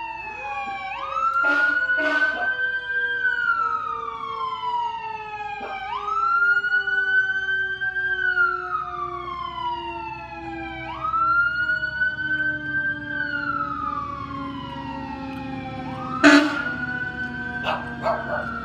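Fire engine siren wailing, each cycle rising quickly and then sliding down over about five seconds, over a lower tone that falls slowly throughout. A few short loud blasts sound near the start, with the loudest about sixteen seconds in.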